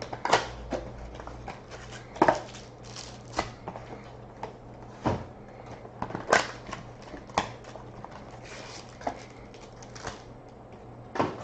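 Cardboard trading card box and its packaging being handled and opened: scattered clicks, taps and short crinkling rustles, over a faint steady hum.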